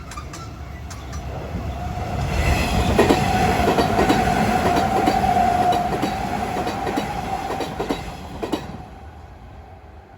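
Kintetsu 8600 series and 1233 series electric train passing at speed, wheels clattering over the rail joints with a steady high whine. It builds up, is loudest for a few seconds, then cuts off sharply as the last car goes by and fades away.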